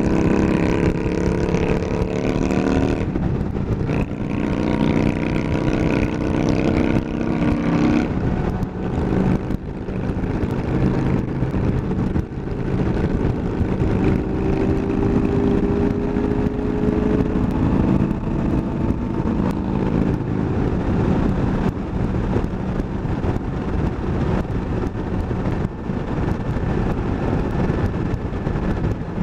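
Kawasaki Versys 1000LT's inline-four engine, fitted with a K&N air filter, pulling under way on the road: its pitch rises, drops about 3 s in, rises again and drops about 8 s in as it shifts up through the gears, then it cruises. Steady wind noise on the microphone runs underneath.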